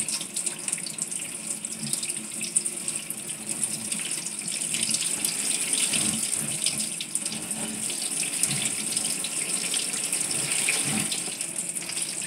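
Salon shampoo-bowl sprayer running, spraying water through wet locs and splashing into the bowl: a steady hiss with small uneven splashes.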